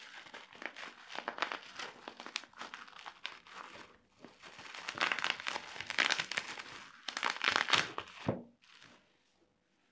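Packaging being crinkled and torn open by hand in irregular bursts. It is loudest about five to eight seconds in, then dies away near the end.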